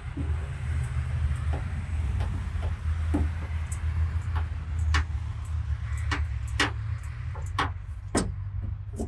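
Steady low hum with irregular sharp clicks and taps of paintless dent repair tools working the metal of a car panel, coming more often in the second half.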